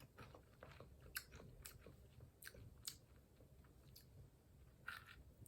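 Faint chewing of popcorn, with a few soft, irregular crunchy clicks.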